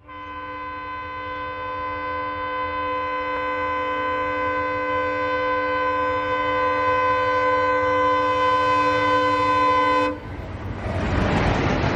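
Indian Railways diesel locomotive's air horn sounding one long steady blast for about ten seconds, growing louder as the train approaches. It cuts off suddenly as the locomotive and its passenger coaches pass close by with loud wheel-and-rail rolling noise.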